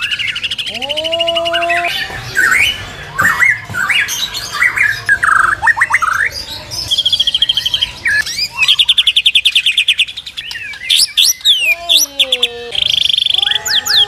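Caged songbirds singing a loud, fast, varied song: rapid buzzy trills, high whistles sweeping downward, and lower drawn-out whistled notes that rise and then hold.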